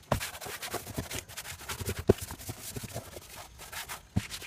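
A rag wiping down the engine bay: irregular rubbing strokes with scattered light knocks, the sharpest knock about two seconds in.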